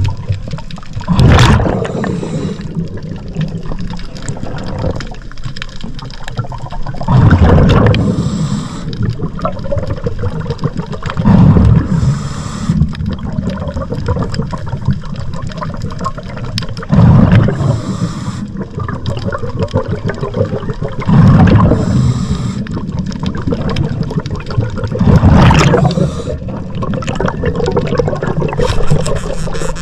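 Scuba diver breathing through a regulator underwater: a loud rush of exhaled bubbles comes about every four to six seconds, six times, with a fainter hiss between breaths.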